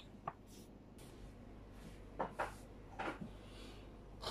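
A few faint, short taps and rubbing sounds of hands handling plates and a bowl at a dining table.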